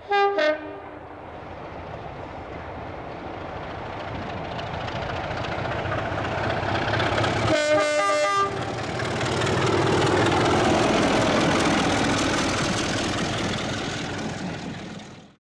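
BR Class 33 'Crompton' diesel locomotive with its Sulzer eight-cylinder engine running, its horn sounded briefly at the start and again about eight seconds in. The engine and wheel noise grows louder as the locomotive approaches, loudest about ten seconds in.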